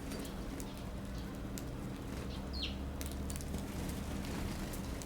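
A single short bird call falling in pitch about two and a half seconds in, with scattered faint ticks, over a steady low hum.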